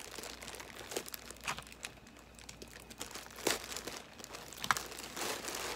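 Plastic packaging bag crinkling and rustling as it is opened and a piece of clothing is pulled out, with a few sharper crackles.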